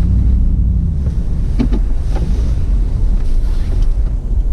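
Steady low engine and drivetrain noise of a 4th-generation Toyota 4Runner's 4.7-litre V8 driving slowly along an off-road trail.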